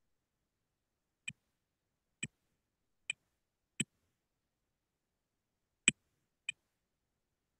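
Computer keyboard keys struck one at a time, giving six separate sharp clicks at uneven gaps, as in slow typing. The loudest click comes about six seconds in.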